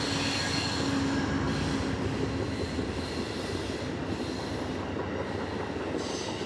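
Amtrak passenger train passing at speed: the GE P42DC diesel locomotive's steady hum in the first few seconds, then the passenger cars rolling by with a continuous rumble of wheels on rail. High-pitched wheel squeal or hiss rises and fades every second or two.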